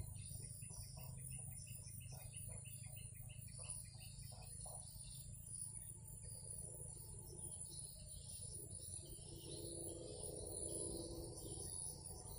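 Riverbank ambience: insects keep up a steady high-pitched drone while a bird calls in a quick run of repeated notes, about four a second, for the first few seconds, with scattered chirps later.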